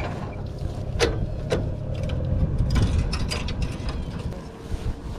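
Scattered metallic knocks and clicks over a low rumble, as a rusted piece of truck roof pulled from the water is handled.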